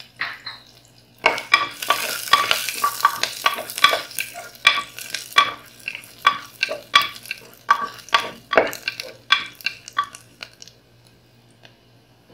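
Wooden spatula stirring shallots, coconut pieces and cumin seeds frying in coconut oil in a metal pressure cooker: quick ringing taps and scrapes against the metal over a sizzle. The stirring stops about ten and a half seconds in.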